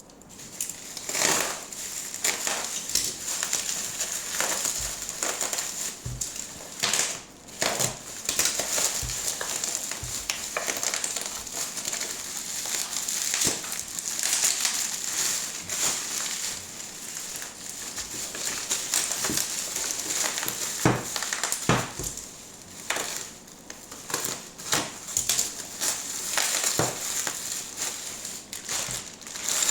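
Packaging being handled: continuous crinkling and rustling of wrapping, with many scattered taps and knocks.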